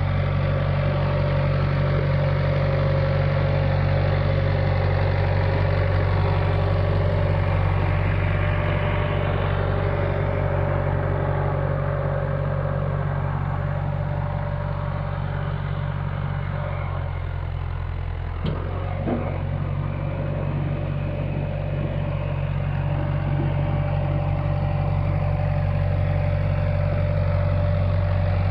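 Early-1970s John Deere backhoe engine idling steadily. Its note shifts briefly about two-thirds of the way through, with a couple of sharp clicks, then settles back to a steady idle.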